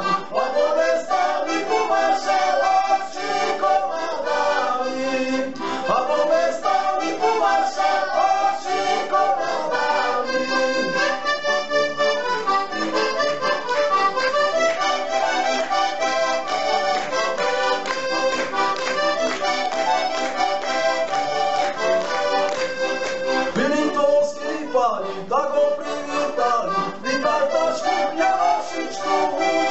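Four heligónky, Slovak diatonic button accordions, playing a fast instrumental folk tune together.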